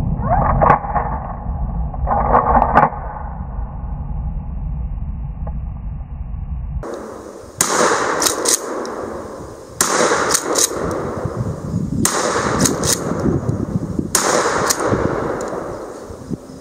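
Shotgun fired four times about two seconds apart, each shot followed by a couple of sharp clacks of the action being cycled. Before that come two muffled bangs in the first three seconds.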